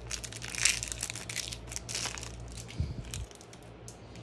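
Crinkling and crackling of a card pack's plastic wrapper being torn open by hand, busiest in the first two seconds and dying away after about three.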